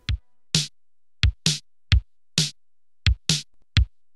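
Electronic drum-machine beat with no other instruments: deep kick-drum hits alternating with brighter snare hits, about two hits a second, playing as a title sting.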